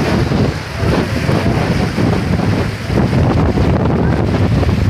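Wind buffeting the microphone in uneven gusts, over the rush of sea waves breaking and foaming against shoreline rocks.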